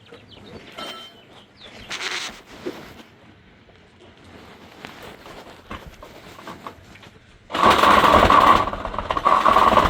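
Light knocks and handling noise, then about seven and a half seconds in a power saw starts up loud and buzzing as it cuts into the timber framing; it is fitted with a wood blade where a metal-cutting blade is needed for the nails and metal in the cut.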